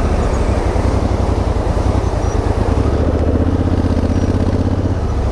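Adventure motorcycle's engine running at low speed over rough rocky ground, pulling a little harder about three seconds in.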